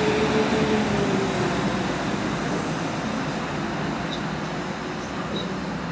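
Class 197 diesel multiple unit moving away, its engine hum and rail rumble fading steadily as it recedes; the engine tones die away about a second and a half in.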